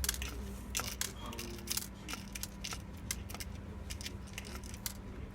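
Irregular light clicks and taps of a screwdriver and the plastic laptop base panel being handled as the back casing is refitted, over a steady low hum.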